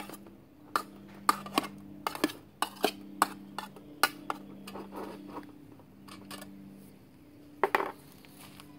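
Metal spoon clinking and scraping against a steel canteen cup while stirring cubes of Spam frying in soy sauce: a quick, irregular run of clinks for about five seconds, then a louder knock near the end.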